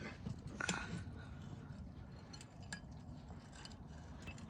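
A few faint metallic clinks and light knocks from rear-differential parts being handled, over a low steady background hum.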